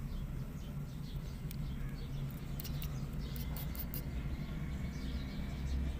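A nursing mother cat purring, a steady low rumble. Faint high chirps run over it, and a few soft clicks come about halfway through.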